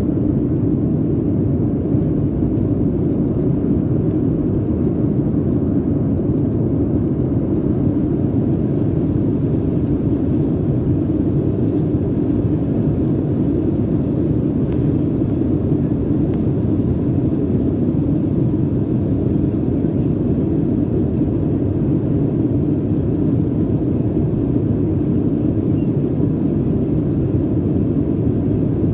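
Cabin noise inside a Boeing 737-300 climbing after takeoff: the steady low roar of its CFM56-3 turbofan engines and the airflow past the fuselage, unchanging throughout.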